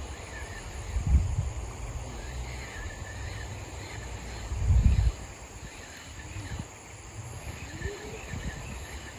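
Riverside outdoor ambience: faint, scattered chirping of small wildlife over low rumbling thumps on the microphone, the biggest about a second in and near five seconds in.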